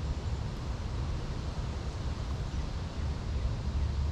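Wind buffeting the microphone: a steady, uneven low rumble with a light hiss over the top.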